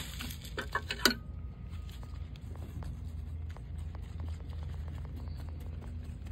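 A few sharp clicks about a second in, then faint scattered scratching and ticking as a small hand cultivator works fertilizer into potting soil.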